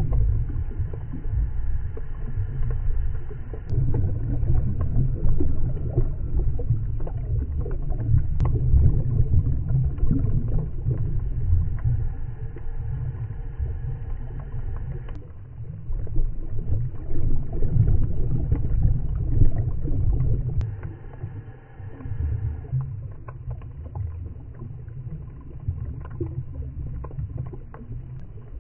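Underwater sound of scuba divers' exhaled air bubbles, a low uneven rumble and gurgle heard through a camera's underwater housing, coming in surges and dropping off somewhat after about twenty seconds.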